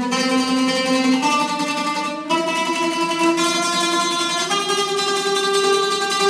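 Oud playing a rising series of held notes, each a step higher than the last, changing about every one to two seconds.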